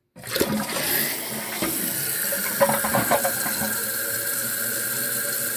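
Toilet water rushing and hissing, starting suddenly, with a steady high hiss from the newly installed fill valve as the tank refills and a few knocks in the first few seconds.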